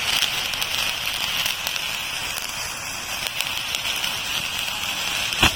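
A 500 g fountain firework spraying with a steady, loud hiss and scattered crackles. Near the end comes a single sharp pop.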